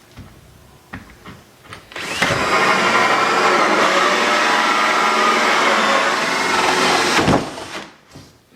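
Power drill running steadily for about five seconds while drilling into the wooden door, then stopping suddenly; a few light knocks come before it.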